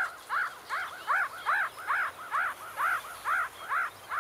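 Meerkat pup giving rapid, repeated begging calls, about two and a half short rising-and-falling squeaks a second, asking the foraging adults for food.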